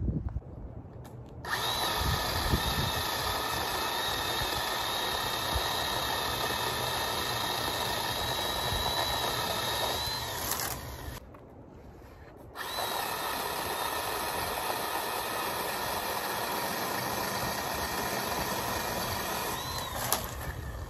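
Ryobi electric pole saw running in two stretches of several seconds each, a steady high motor whine with a break of about two seconds halfway through, as it cuts tree branches.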